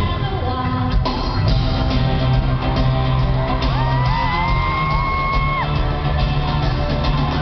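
Live pop-rock band music in a large arena, heard from the audience. About midway a high voice glides up into a long held note for about two seconds, then stops.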